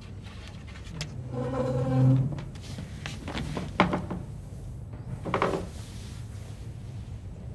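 Wooden coffin being handled and set upright: a drawn-out wooden creak about a second in, a sharp knock a little under four seconds in, and a shorter creak shortly after.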